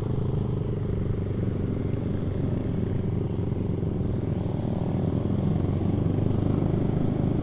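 Motorcycle engine running steadily while riding, its note getting a little louder near the end.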